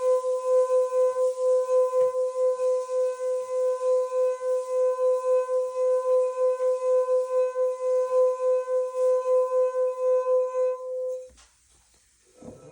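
Water-filled crystal glass singing as its rim is rubbed: one steady ringing tone with higher overtones, pulsing about four times a second. It stops about eleven seconds in, followed by a brief low handling noise near the end.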